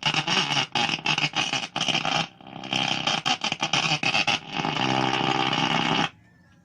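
Sony two-band AM/FM radio on the AM band at full volume, giving loud static and crackling from its speaker as the tuning capacitor is turned, with no clear station. This is the symptom of its no-AM-reception fault, which the repairer traces to a transistor in the AFC section. The sound cuts off suddenly about six seconds in.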